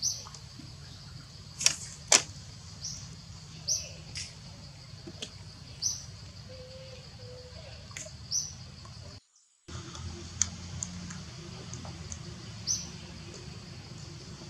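A bird chirping: short, high, upward-sweeping chirps repeating every one to two seconds over a low steady hum. Two sharp clicks about two seconds in, and the sound drops out briefly just past the middle.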